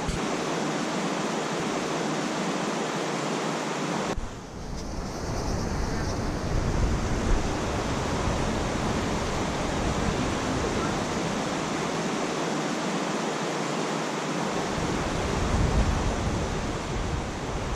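Steady rush of a mountain creek pouring over boulder cascades and small waterfalls. Low wind rumble on the microphone comes and goes.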